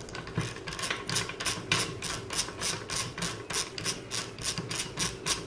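Screwdriver backing out the bearing-assembly screws from a SureShade actuator's metal tube: a quick run of short scraping, grating strokes, about three or four a second, as the screw threads turn in the tube.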